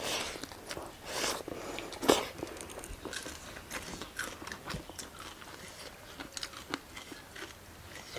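Close-up eating sounds of a meal of rice and chicken curry in broth: chewing and small wet clicks, with a few louder noisy mouth sounds in the first two seconds.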